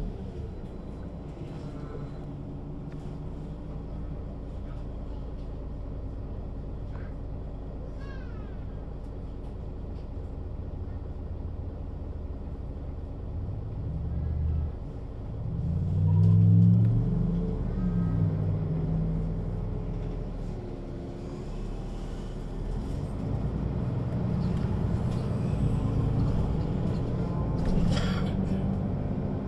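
Mercedes-Benz O 530 G Citaro G articulated bus with a ZF automatic gearbox: the diesel engine runs steadily, then revs up as the bus pulls away about halfway through, loudest a little after that, and picks up again near the end. A short high-pitched rising squeal is heard about a quarter of the way in.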